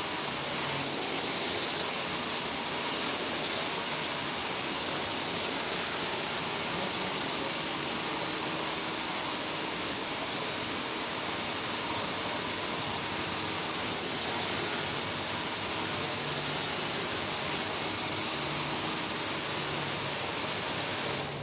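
Handheld hair dryer blowing steadily, cutting off abruptly at the very end.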